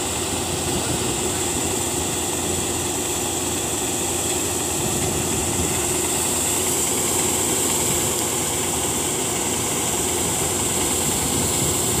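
Combine harvester running steadily while unloading: a continuous drone of its engine and machinery, with the grain auger discharging into a truck.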